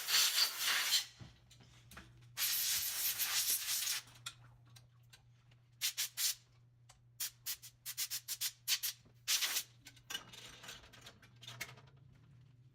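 Pressurised spray hissing in bursts: two longer sprays of about a second each near the start, then a run of short spurts. A steady low electrical hum sits underneath.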